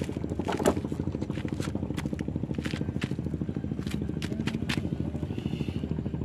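An engine running steadily at idle, a low drone with a fast even pulse, with scattered sharp clicks and scrapes close by.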